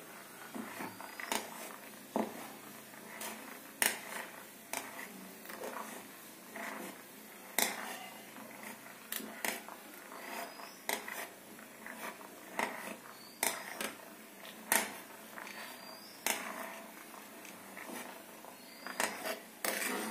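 A metal spoon knocking and scraping against a kadhai as boiling tamarind is mashed in it, in irregular clicks about one or two a second, over the steady faint bubbling of the simmering liquid.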